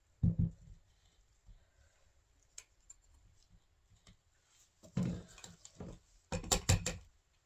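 Handling clatter of a stick blender and spatula in a small plastic measuring cup of soap batter. A thump comes just after the start, then light ticks, and a loud cluster of knocks and scrapes in the last couple of seconds.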